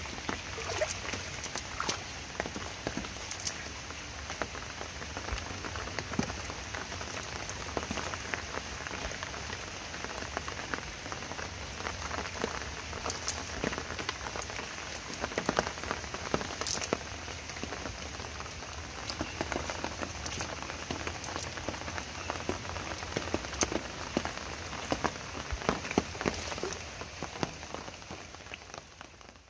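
Steady rain falling, a continuous hiss dotted with many scattered sharp drop taps.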